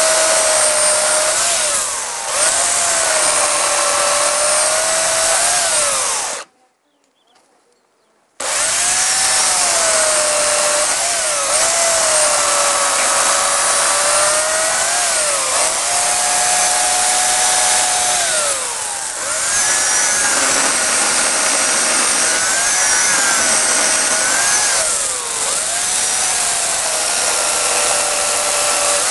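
Dolmar electric chainsaw cutting into a beech log: a steady motor whine with chain and sawing noise, the whine repeatedly dipping and rising in pitch as it cuts. The sound cuts out for about two seconds around six seconds in.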